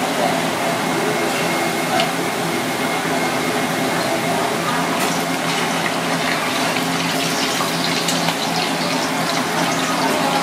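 Floured pieces deep-frying in hot oil in a cast iron pan: a steady sizzle. Crackling and popping thicken from about halfway through.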